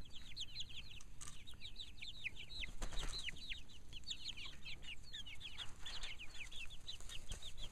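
Young chickens, mostly Barred Rocks, peeping without pause: many short, high, falling cheeps overlapping, several a second. A brief rustling noise comes about three seconds in and again near six seconds.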